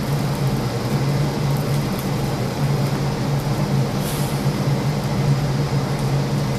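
A steady low mechanical hum over a rumble, unchanging throughout, with a brief hiss about four seconds in.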